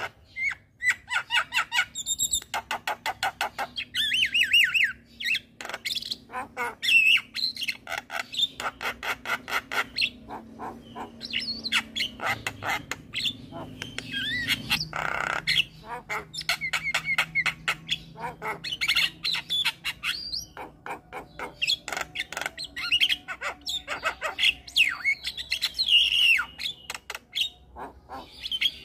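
Javan myna in full song: rapid runs of harsh clicks and chatter, broken by rising and falling whistles, with short pauses between phrases.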